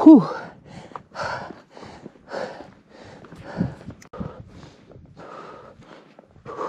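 A person breathing hard and fast while climbing on foot, short noisy breaths in and out every half second or so, opening with one short, loud voiced breath out that falls in pitch. This is breathlessness from the thin, low-oxygen air at high altitude.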